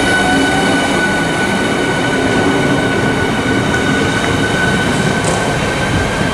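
Southeastern Class 395 high-speed electric train running past close by along the platform: a loud, steady rolling noise with a steady high whine over it.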